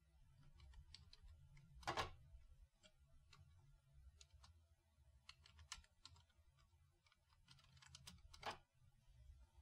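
Faint typing on a computer keyboard: a scatter of soft key clicks, with two louder clacks about two seconds in and near the end.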